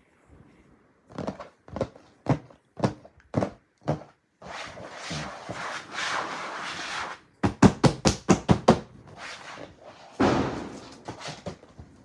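Taps on a gift box: six slow, evenly spaced taps, then a few seconds of crinkling wrapping, a quick run of about eight sharp taps, and another burst of crinkling near the end.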